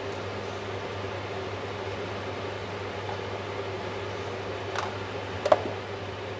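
Induction hob running under a wok of simmering chicken in sauce: a steady hum and hiss like an appliance fan. About five seconds in come two sharp clicks of a utensil as seasoning is spooned in, the second the loudest.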